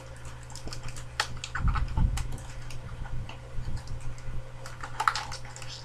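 Irregular clicks and crinkles from a plastic DVD case and its wrapping being handled and opened, with a low thump about two seconds in.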